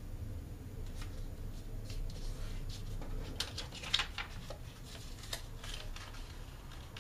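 A sheet of A4 printer paper rustling and crinkling as it is folded and creased by hand, in scattered crisp rustles, the sharpest about four seconds in.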